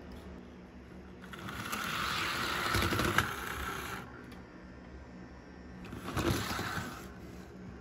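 Model PRR diesel locomotive, running on newly fitted traction bands: its small electric motor whirs and its wheels rattle along the track, swelling louder twice as it comes close. A steady low hum runs underneath.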